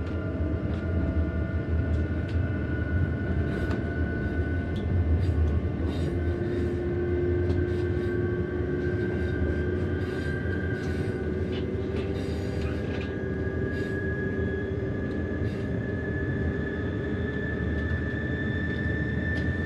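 Electric Rhaetian Railway train heard from inside the carriage, running with a steady low rumble. A motor whine slowly rises in pitch as the train picks up speed. Scattered clicks and rattles come through over it.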